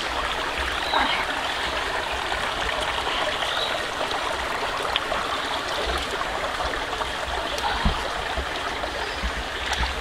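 Steady rush of running water, like a forest stream, with a brief knock just before the end.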